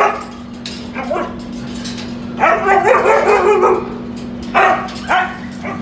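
Husky vocalizing in a string of short yelps and barks, with one longer wavering howl-like call lasting over a second about two and a half seconds in.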